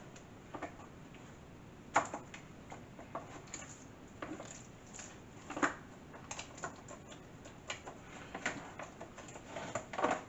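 Hands working a seasoned porgy around in thick batter in a plastic tub: irregular soft wet squelches and small taps. The loudest come about two seconds in, about halfway through and near the end.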